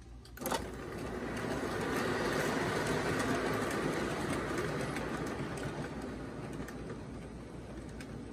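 O-gauge model train, a Williams F7 diesel set and MTH RailKing passenger cars, rolling past on three-rail track. A sharp click comes about half a second in, then a steady rolling rumble of wheels and motors that swells and slowly fades as the cars go by.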